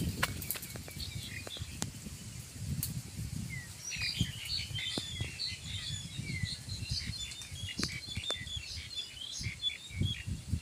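Small birds chirping busily, with many short chirps from about four seconds in, over close rustling and crackling of dry grass and brush.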